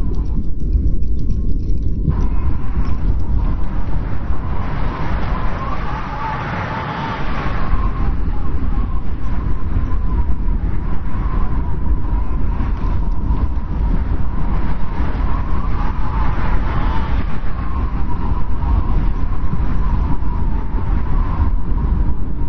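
Strong winter wind blowing in a steady, heavy rumble, with a thin whistle that swells and fades twice as gusts come through.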